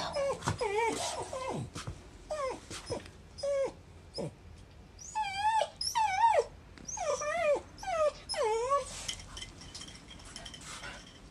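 Shiba Inu whining: a run of about ten short, high cries that waver up and down in pitch, ending about nine seconds in.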